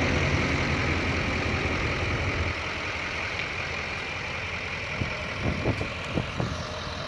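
Duramax turbo-diesel V8 idling through a stainless dual exhaust with stack tips, a steady low engine sound that gets quieter about two and a half seconds in. A few short sharp sounds come near the end.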